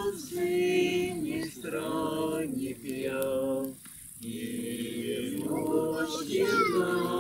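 A group of voices singing unaccompanied in sustained phrases, with a brief pause for breath about four seconds in.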